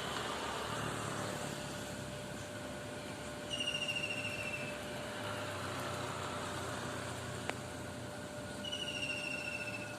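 A bird gives two rapid, slightly falling high trills, each about a second long and about five seconds apart, over a steady background hiss.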